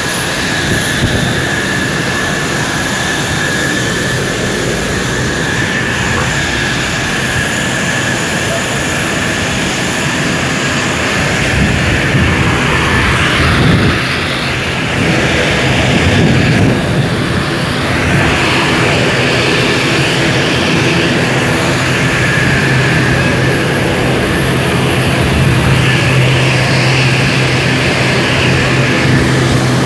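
Jet aircraft engines running on an airport apron: a loud, steady rush with a high whine through the first half and a deeper steady hum coming in during the second half.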